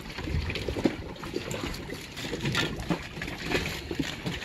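Water lapping against a sailboat's hull, with scattered small clicks.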